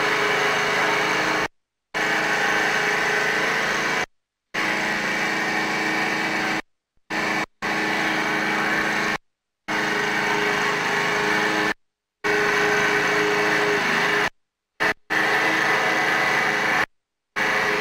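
Steady motor noise, a constant hum with a hiss over it, broken by abrupt complete dropouts of about half a second every two to three seconds.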